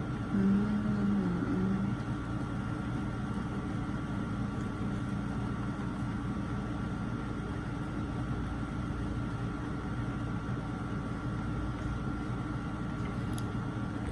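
Steady low hum of a river tour boat's motor running, with a brief wavering tone in the first couple of seconds.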